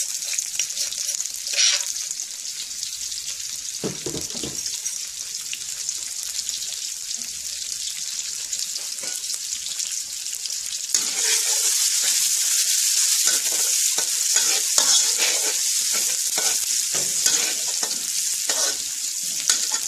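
Pounded chili and garlic frying in hot oil in a wok: a steady sizzle that grows clearly louder about halfway through. A spatula stirs it near the end.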